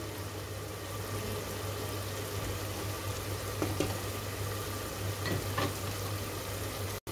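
Onion-tomato masala frying steadily in mustard oil in an aluminium pressure cooker, a continuous even sizzle, with a few faint clicks from the wooden spatula partway through.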